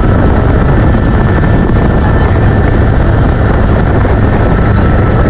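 Helicopter in flight: loud, steady rotor and engine noise with a low rumble and a steady high whine.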